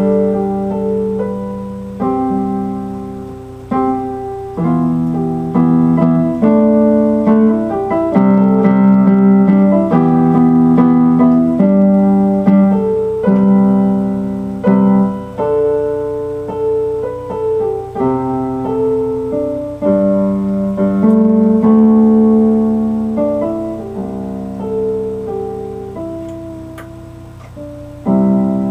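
Solo piano or electric keyboard music: slow chords struck and left to ring, changing every second or two.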